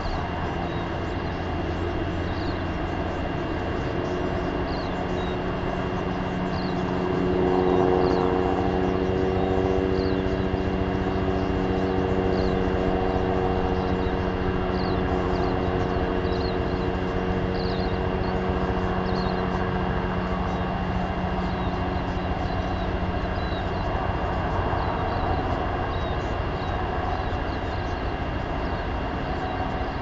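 Droning of a distant engine over steady outdoor noise. It swells about eight seconds in and fades out after about twenty seconds. Faint, short, high chirps repeat throughout.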